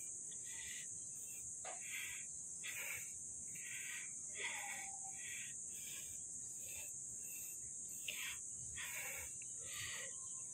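Steady high-pitched insect drone, like crickets, with short irregular sounds every second or so on top.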